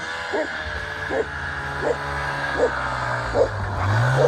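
Arctic Cat Bearcat snowmobile engine running steadily, rising in pitch near the end as it revs and pulls away. Over it a dog barks six times at an even pace.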